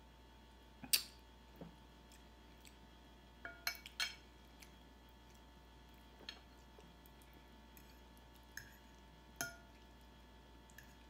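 A metal fork clinking against a plate while twirling spaghetti: about eight sharp, separate clinks, each with a short ring, the loudest about a second in and a quick cluster around four seconds in.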